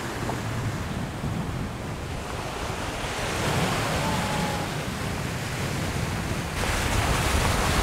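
Surf breaking and washing up a sandy beach, mixed with gusty wind buffeting the microphone; the surf hiss grows brighter and louder near the end.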